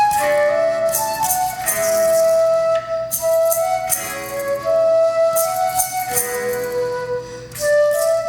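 Live ensemble music: a flute plays a melody of long held notes over chordal accompaniment, with light rhythmic percussion.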